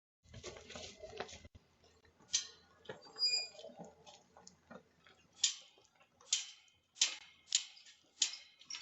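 A series of sharp taps, about eight, spaced roughly half a second to a second apart, after a short rustle at the start.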